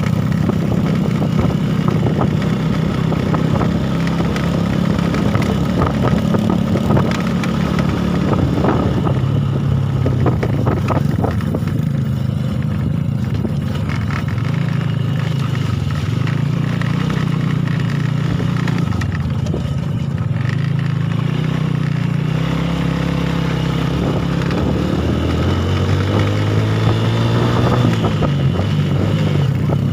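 Small underbone motorcycle engine running while riding a rough dirt track, its pitch rising and falling with the throttle and climbing near the end as it accelerates. Knocks and rattles come through about a third of the way in as the bike goes over the ruts.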